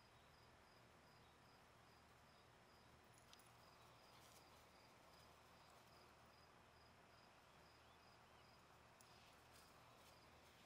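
Near silence: faint night-time outdoor ambience with a cricket chirping in a steady, evenly repeating high note, and a couple of faint ticks.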